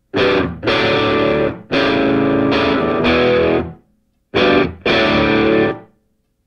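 Music: distorted electric guitar chords in about five short stop-start blasts with silent gaps between them, the longest held for about two seconds.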